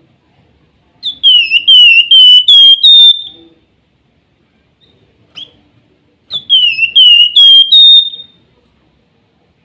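Javan fulvetta (flamboyan, wergan jawa) singing its whistled 'nyiul' song. It gives two loud phrases a few seconds apart, each a run of about five clear whistles that dips, then steps back up in pitch.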